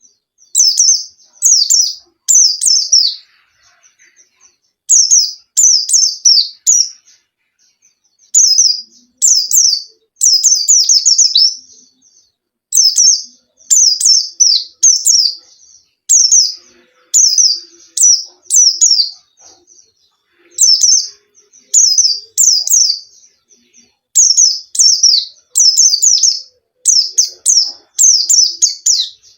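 Pleci (white-eye, Zosterops) singing a lure song: runs of quick, high chirps, each note falling in pitch, about a second long and separated by short pauses, repeated over and over.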